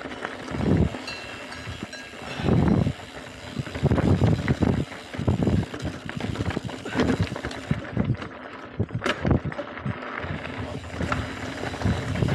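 Mountain bike clattering and rattling over a rocky gravel trail on a fast descent, with tyres crunching on loose stones and sharp knocks from rock hits. Uneven gusts of wind buffet the microphone.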